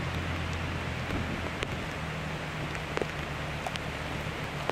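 Steady rain falling, with scattered drops tapping sharply close by, over a low steady hum that shifts in pitch about a second and a half in.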